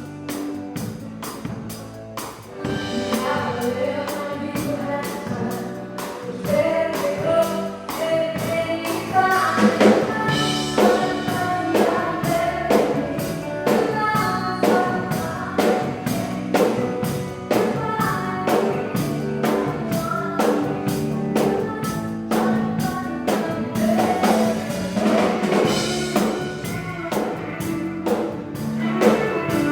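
Live country band playing a song: a lead singer over a drum kit keeping a steady beat, with a louder, fuller passage from about ten seconds in.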